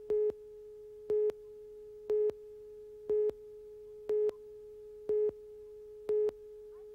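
Videotape slate countdown beeps: seven short, identical tone beeps about once a second, one for each number of the countdown leader, over a faint steady tone of the same pitch.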